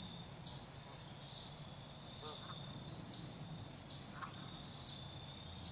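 Insects chirping in an even rhythm, a short high chirp a little more than once a second over a faint steady trill, with a few faint low calls from Canada geese between them.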